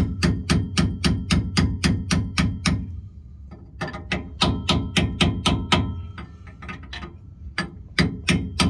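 Rapid hammer taps on the Nissan C200 differential carrier, driving it and its side spacers into the axle housing. The knocks come about four or five a second with a short metallic ring, pausing briefly about three seconds in and again about six seconds in.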